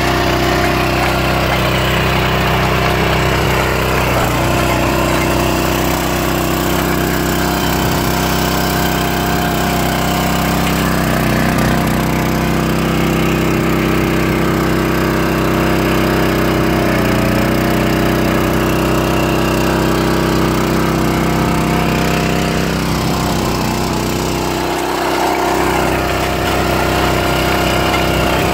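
Barreto 912 walk-behind trencher running steadily under load, its small gasoline engine driving the digging chain through dry soil.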